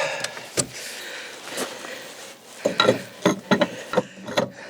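Metal clicks and clunks of a tow-bar bike carrier being fitted onto a car's tow hitch. There are a couple of single knocks, then a quick run of clicks in the second half.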